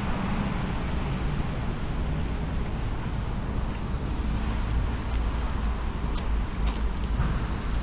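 Rainy city street ambience: a steady low rumble under an even hiss, with a few light ticks between about three and seven seconds in.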